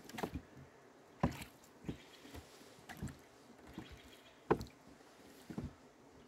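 Rowboat being rowed: the oars knock in their oarlocks with each stroke, a sharp knock about every second.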